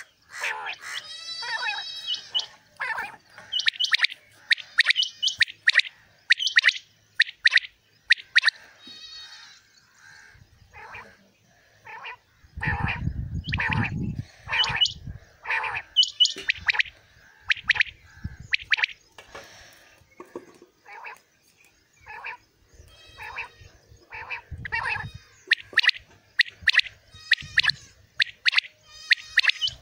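Common quails calling over and over from their cages, several birds at once: short, sharp repeated notes that overlap one another. A brief low rumble comes about halfway through.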